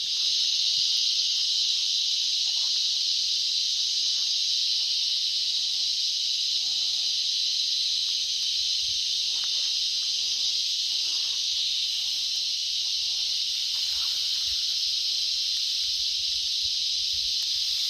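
Steady, high-pitched insect chorus that does not let up, with faint irregular crackling underneath.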